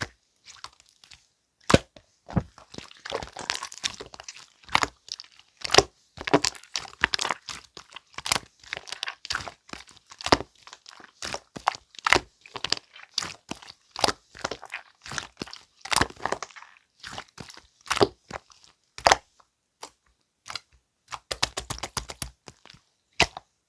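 Clear slime being pressed, squeezed and stretched by hand, giving sticky crackling clicks and pops. A quick run of evenly spaced clicks comes near the end.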